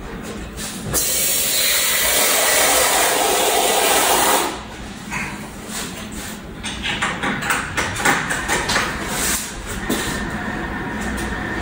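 Water hissing out under pressure from the drain valve of a central-heating dirt separator into a glass jar, flushing out the sludge the separator has caught. The rush starts about a second in and is cut off suddenly after about three and a half seconds, followed by a run of small clicks and knocks from the valve and jar being handled.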